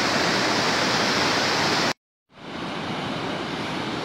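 Steady rushing noise of surf breaking on the shore, loud and even. It cuts out abruptly about two seconds in and, after a brief silence, returns quieter and duller.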